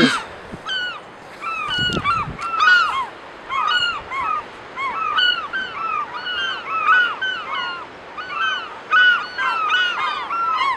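Several gulls calling over one another: a steady string of short, arched, honking calls, with a denser burst near the end.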